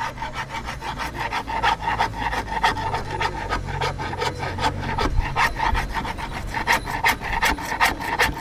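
A hand tool rasping in quick repeated strokes, about three or four a second, as a djembe drum is worked by hand.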